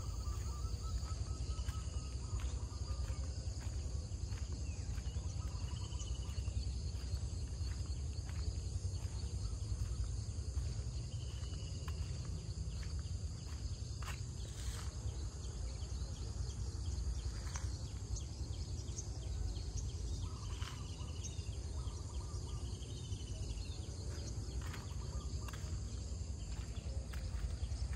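Countryside ambience: steady high insect buzzing with a few short bird chirps scattered through it, over a steady low rumble.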